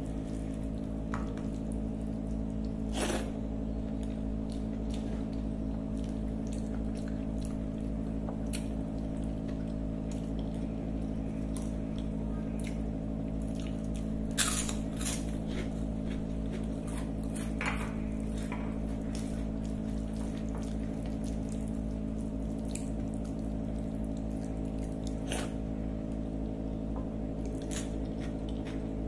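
Close-up eating sounds: fingers mixing rice and curry on a plate, with scattered small wet clicks of the mouth. About halfway through there is a sharp crunch as a crisp fried wafer snack is bitten. A steady low hum runs underneath.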